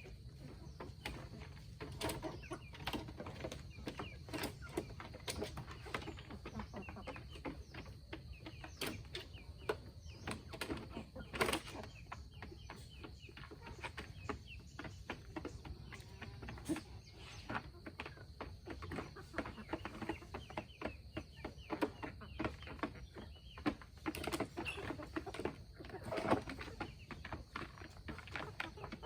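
Chickens clucking, over many short clicks and rustles.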